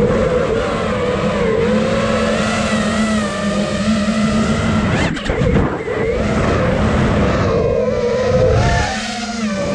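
Brushless motors of an iFlight Nazgul Evoque 5-inch FPV freestyle quadcopter in flight, a whine that rises and falls with the throttle. About five seconds in the sound briefly dips and breaks up, and it drops in pitch and level near the end.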